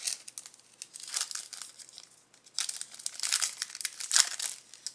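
Foil wrapper of a Panini Select football card pack being torn open and crinkled by hand, in irregular bursts of rustling that are loudest in the second half.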